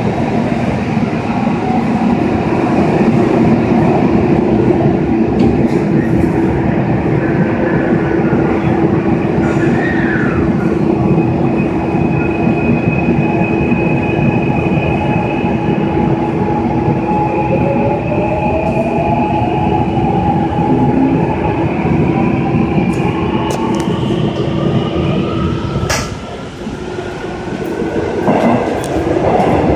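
Gwangju Metro subway train running, heard from inside the car: a steady rumble of wheels on rail under a steady hum. From about two-thirds of the way through, a motor whine rises in pitch as the train gathers speed. A sharp click comes near the end, followed by a brief dip in loudness.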